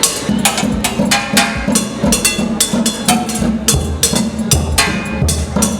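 Percussion-led music: a fast, steady rhythm of sharp strikes over a pulsing bass line, the low end growing fuller a little past halfway.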